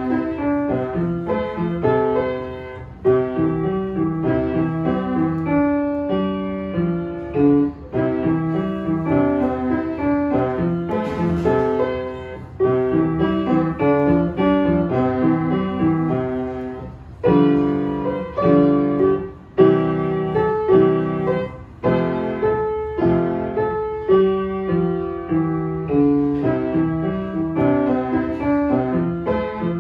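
Belton upright piano played with both hands by a young child: a melody over a bass part, in phrases separated by short breaks.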